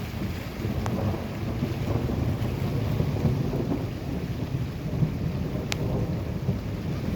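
Rolling thunder from a lightning storm: a low rumble that swells about half a second in and keeps rumbling, with two light clicks, one about a second in and one near the end.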